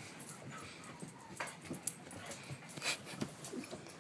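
Dogs playing and chasing each other on carpet: scuffling, a few short dog vocal sounds and several sharp clicks.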